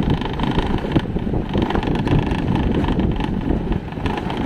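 Motorcycle riding slowly down a steep concrete lane, its engine and tyres heard under steady wind noise on the microphone.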